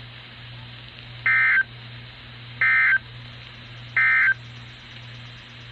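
NOAA Weather Radio SAME end-of-message code: three short, identical bursts of digital data tones about a second and a half apart, over steady radio hiss and a low hum. The bursts mark the end of the warning broadcast.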